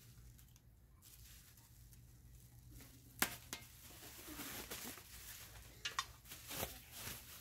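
Bubble-wrap packaging being cut with a knife and pulled apart: soft plastic rustling and tearing, with a few sharp snaps, the loudest about three seconds in and another cluster near the end.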